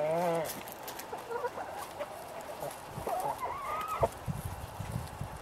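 Light Brahma hens clucking and calling: a short wavering call right at the start and a rising call about three seconds in. Soft low thumps follow near the end.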